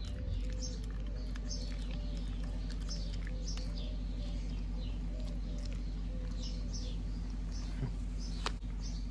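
A husky chewing a dried beef chew strip, with faint scattered clicks and two sharper ones near the end. This sits over a steady low hum and birds chirping.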